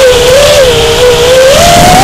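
FPV racing quadcopter's brushless motors whining as it flies. The pitch wavers with the throttle, then rises near the end as the motors speed up.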